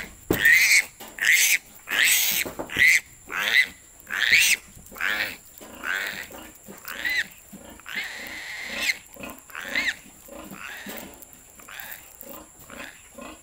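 Piglet squealing repeatedly as its hind legs are held and bound, a sign of distress at the handling. The squeals come in quick succession, loudest in the first few seconds, with one longer squeal near the middle, and grow fainter toward the end.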